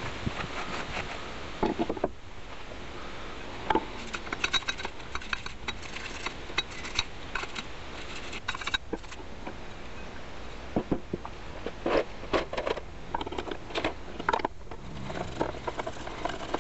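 Cast-iron and steel parts of a hand-cranked grinder being wiped and scrubbed in a brass pot of cleaning liquid. Scattered light metallic clinks and taps, with rag rubbing and liquid stirred, over a steady hiss.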